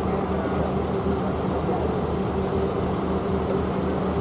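Deep bass from a large outdoor sound system with 30-inch subwoofers, pulsing about three times a second under a steady droning tone, during a bass sound test.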